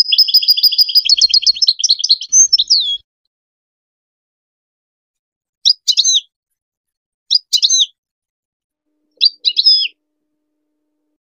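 European goldfinch singing: a fast, high twittering trill for about three seconds, then after a pause three short, sharp twittered phrases spaced less than two seconds apart.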